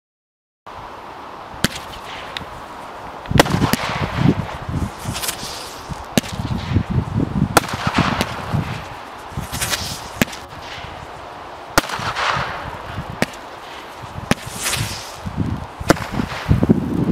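Zeus Fireworks 'Zeus' barrage cake from the Mini Gods pack firing: sharp shots about every one to two seconds, each followed by a spell of crackling from the bursting stars. It starts about half a second in, after a short silence.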